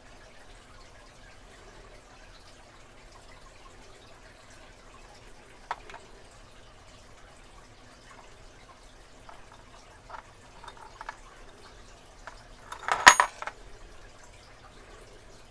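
Small brass and steel lock parts of a deadbolt mortise cylinder clicking against each other as the cylinder is reassembled by hand: a few light isolated clicks, then a louder flurry of metallic clacks with a brief ring about thirteen seconds in.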